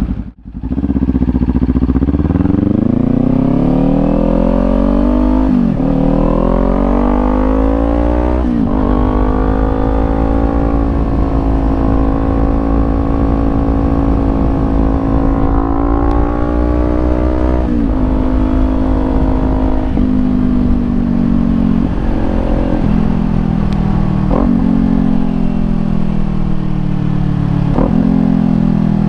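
Kawasaki Ninja 400 parallel-twin with a Leo Vince slip-on exhaust, ridden on the road. It pulls up through the gears with two upshifts in the first several seconds, then holds a steady cruise. Later the revs fall away, with brief blips on downshifts near the end.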